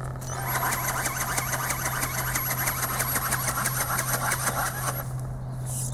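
Hand-held ornithopter with articulated wings, its small battery-powered electric motor and 3D-printed gearbox driving the wings in a rapid, even flapping beat with a thin high whine. The flapping stops about five seconds in.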